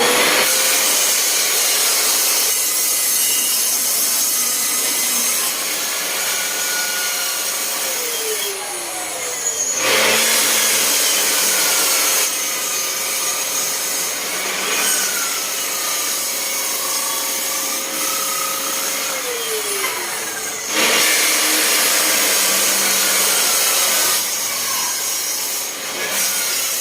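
Lotus table saw running and cutting plywood in two passes. Each time the blade bites in, the motor's steady whine drops in pitch and the louder noise of the blade cutting through the plywood follows.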